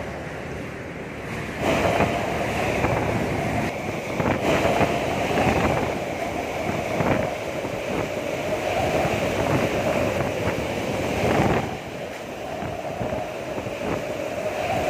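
Strong, gusting typhoon wind with wind rumble on the microphone. A gust swells suddenly about two seconds in and eases off abruptly near the end.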